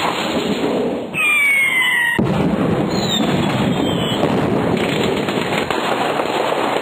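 Rocket-launch alarm sound effect: a loud continuous rocket-engine roar with crackle. A falling whistle comes in about a second in, and at about two seconds the roar cuts in fuller and lower.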